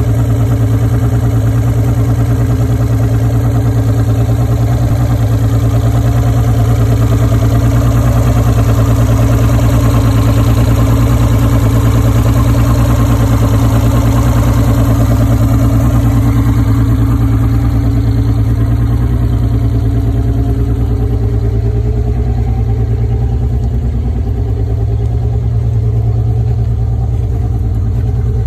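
Outboard motor idling steadily out of the water, cooled by a hose fed from a homemade barrel-and-pump water supply. It sounds a little more distant and muffled in the second half.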